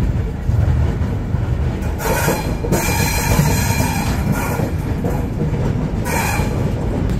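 Passenger express train rolling slowly out of a station, heard from an open coach door: a steady low rumble of the wheels on the rails. About two seconds in and again about six seconds in, short high screeching hisses from the wheels break in.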